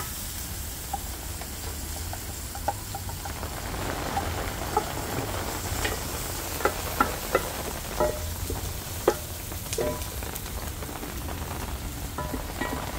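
Onions, garlic and hot pepper sizzling steadily in gingerly oil in a large pot over a wood fire, with a wooden spoon stirring and knocking irregularly against the pot, most often in the middle of the stretch.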